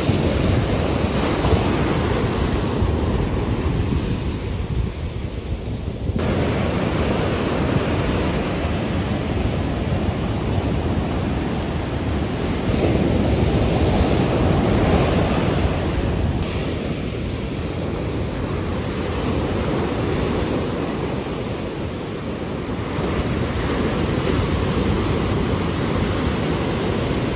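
Heavy hurricane-swell surf breaking close to shore, a continuous rush of water that swells and eases as each wave breaks, with wind buffeting the microphone.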